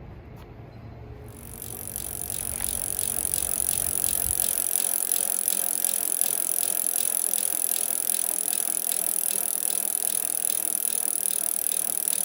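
Espin Sport e-bike rolling, with a rapid, even ticking over a steady rushing noise that swells up about a second in.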